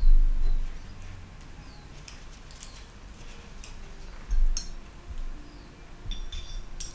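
A dull bump at the start, then light clicks and clinks of a paintbrush and hand working in a plastic watercolour mixing palette and paint tin as paint is picked up. A second bump comes about four seconds in, with sharp clicks just after it and again near the end.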